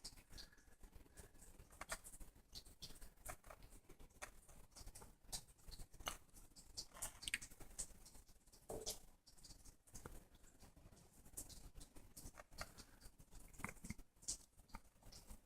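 Small pet birds squabbling over space on a perch toy: short, faint chirps and squawks mixed with scattered clicks and scratches.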